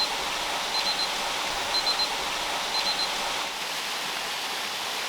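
Waterfall pouring: a steady rush of falling water.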